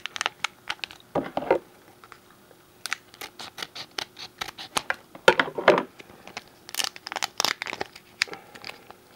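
Glossy foil wrapper of a trading-card booster pack crinkling and tearing in irregular bursts as it is worked open by hand.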